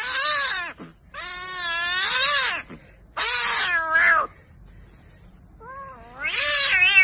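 Kitten meowing: four long, drawn-out meows that rise and fall in pitch, with short pauses between them, the last one starting softly and swelling near the end.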